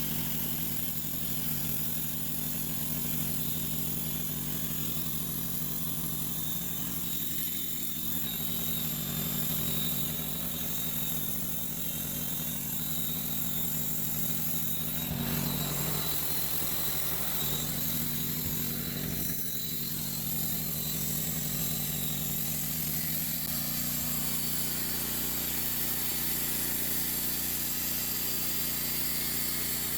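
Sawmill engine running steadily, with a brief louder moment about halfway through.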